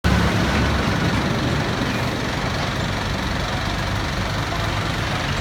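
A vehicle engine idling steadily, with a low, even rumble.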